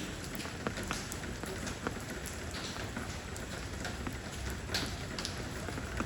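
Steady rain pouring down on stone stepping stones, a constant hiss of rainfall with many individual drops pattering and splashing on the stone surface.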